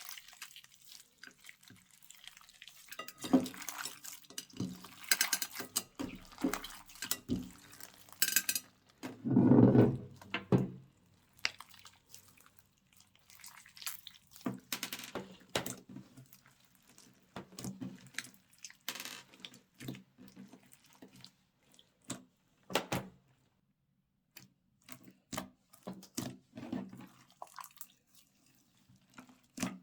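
Slime being mixed and squished by hand: sticky, wet squelches and sharp little clicking pops in irregular bursts, with short pauses between them. A fuller, louder squelch comes about a third of the way in.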